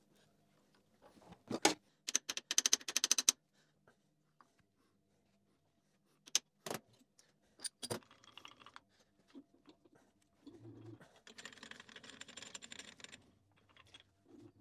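Small metal clicks and knocks as a steel block and parallels are set and clamped in a milling machine vise. Early on there is a quick rattle of clicks lasting about a second, then a few sharp knocks around the middle, then a longer, softer scraping rustle near the end.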